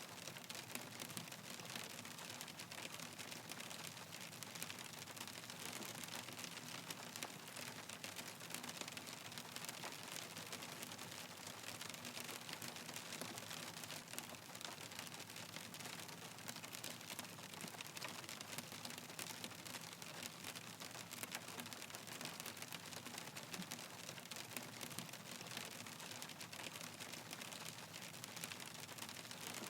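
Hail falling on a hard surface: a dense, steady clatter of countless small ticks that neither builds nor fades.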